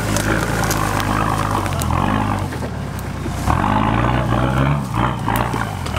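Nissan Patrol 4x4's engine running under load as it crawls over rough ground, revving up and dropping back several times, with a rising rev from about halfway through.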